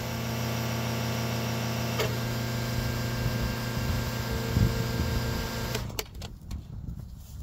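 A steady mechanical hum with a fixed pitch and several overtones, which stops abruptly about six seconds in. A few sharp knocks follow.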